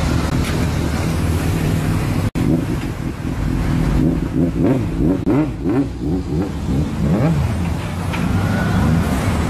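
Car engine and road noise, with a sudden brief dropout about two seconds in. After the dropout a pitched sound swings rapidly up and down for several seconds over the running noise.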